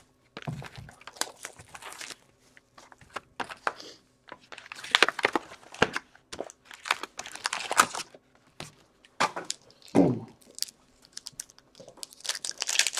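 A sealed cardboard hockey-card box being torn open, and its paper filler and wrapped card packs crinkled and handled in irregular bursts of tearing and rustling.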